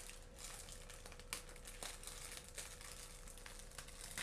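Plastic zip-lock baking bag crinkling faintly as a hand handles it, with a single sharp click a little over a second in.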